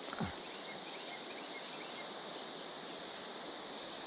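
A steady, high-pitched drone of a periodical (17-year) cicada chorus fills the background. About a quarter second in, a brief tone falls steeply in pitch.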